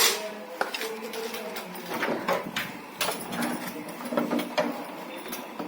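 Irregular series of short clicks and knocks, as of hard objects being handled and set down, with faint low tones under them in places.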